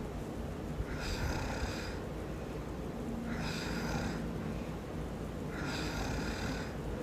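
A man snoring in his sleep: three snores a little over two seconds apart, over a steady low hum.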